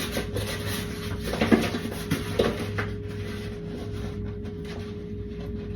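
Soft rustling and a few light knocks from a strip of paper wallpaper being handled and set against the wall, over a steady hum.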